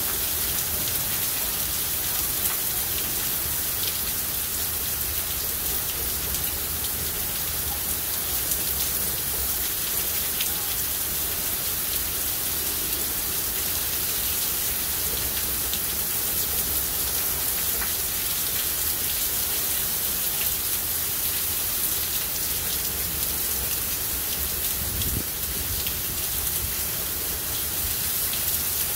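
Heavy rain falling steadily, pattering on pavement, cars, grass and leaves.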